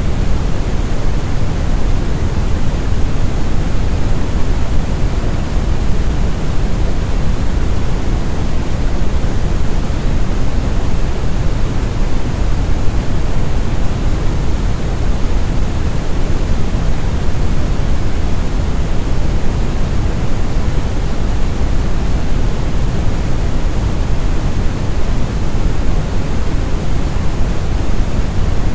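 Brown noise: a steady, deep rumbling hiss with most of its weight in the bass, smooth and unchanging.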